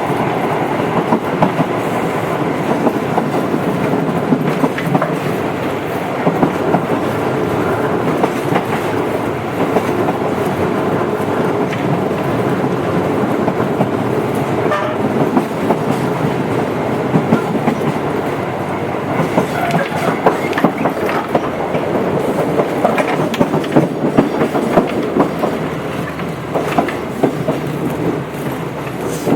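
Tobu 8000 series electric train running between stations: a steady rumble of motors and wheels with repeated clickety-clack of the wheels over rail joints.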